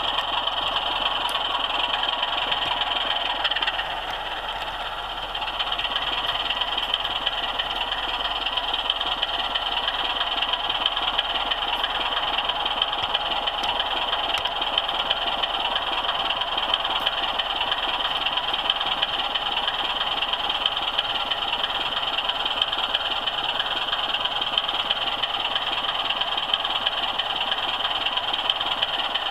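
OO scale model train running along the track, heard from a camera car riding on it: a steady mechanical whirr of motor, gears and wheels on the rails, dipping briefly about four seconds in.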